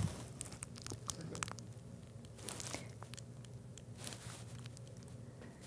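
Faint crinkling of a small paper piping bag as it is squeezed to pipe royal icing, a few soft scattered rustles over a low steady room hum.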